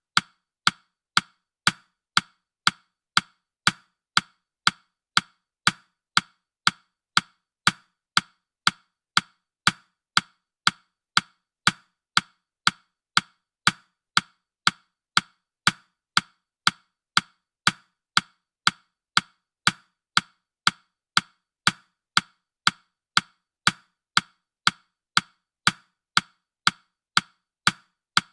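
Countdown timer's ticking sound effect: a steady, even run of sharp, dry, wood-block-like clock ticks.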